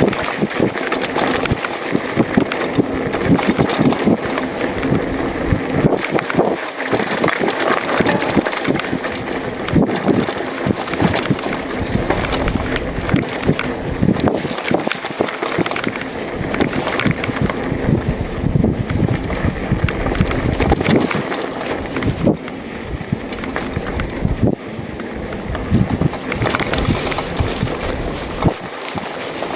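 Mountain bike ridden over a rough dirt track: tyres running on the dirt and the bike rattling with many small knocks over the bumps, with wind buffeting the microphone.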